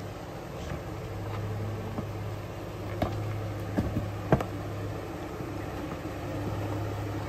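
Jeep Wrangler's engine running low and steady as it crawls over rock ledges, with a few short sharp knocks between about three and four and a half seconds in.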